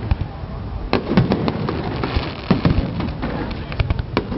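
Aerial fireworks going off: an irregular run of sharp bangs and cracks, roughly one every half second, the loudest about a second in.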